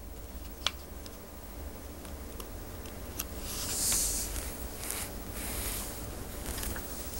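Low room tone with a steady hum. A single sharp click comes just under a second in, a few fainter ticks follow, and a brief soft hiss rises and fades about four seconds in.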